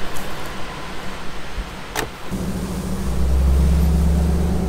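A car door shuts about two seconds in. Then the engine of the Morrvair, a Corvair-bodied off-road recovery rig, comes up to a loud, steady low drone as the rig pulls away.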